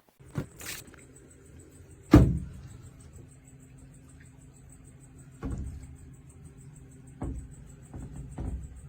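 A steady low machine hum with a faint high whine, broken by several dull thumps. The loudest thump comes about two seconds in, and others follow near the middle and toward the end.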